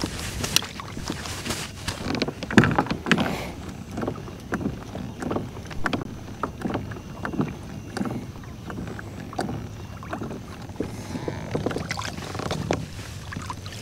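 Water splashing and lapping against a plastic fishing kayak's hull, with scattered knocks and clicks of gear against the hull. Near the end, water drips from a crab-net line being hauled in.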